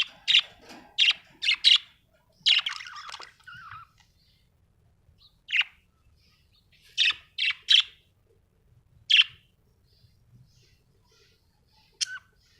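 Budgie (budgerigar) chirping: a quick run of sharp high chirps, then a short scratchy warble. After that come scattered single chirps and a quick burst of three, with pauses between them.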